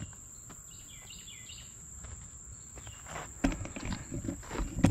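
Steady high-pitched insect drone with a few faint chirps about a second in; about three and a half seconds in, heavy close footsteps on a dirt bank and rustling thumps take over as someone walks right up to the microphone.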